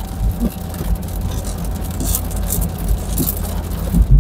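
Inside a car's cabin driving on a wet road in the rain: a steady low rumble of engine and tyres, with a few brief hissing swishes and a low thump near the end.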